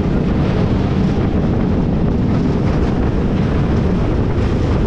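Compact portable steel roller coaster train running along its track: a steady rumble mixed with wind buffeting the microphone.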